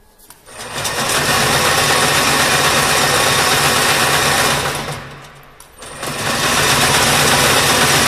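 High-speed wire harness braiding machine running loudly, its bobbin carriers giving a dense mechanical clatter over a steady low hum. It spins up in the first second, runs down and stops about five seconds in, then starts up again about a second later.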